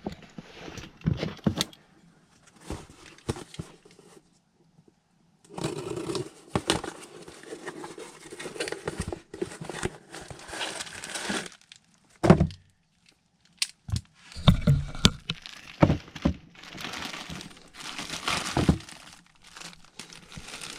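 Crinkling and rustling handling noises with scattered clicks, broken by a single loud thunk about twelve seconds in.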